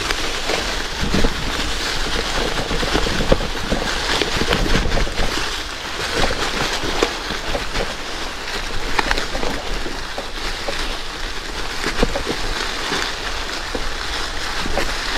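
Gravel bike on 650b Panaracer GravelKing tyres rolling over a rocky gravel trail: a steady rush of tyre and wind noise, dotted with many small crunches and rattles from stones and the bike.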